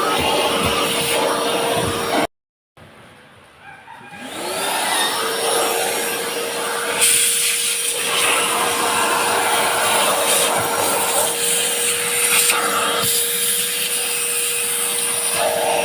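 Vacuum cleaner running with a steady motor whine and rushing air. About two seconds in the sound cuts out completely. The motor then starts up again, its whine rising in pitch over about a second before it settles and runs steadily.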